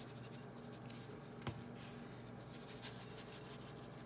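Faint, soft shakes of a seasoning shaker sprinkling over raw chicken thighs, with one light knock about a second and a half in, over a low steady hum.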